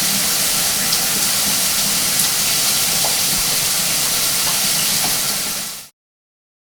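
Shower running: a steady hiss of water spray, with a few faint drip-like ticks, fading out quickly to silence near the end.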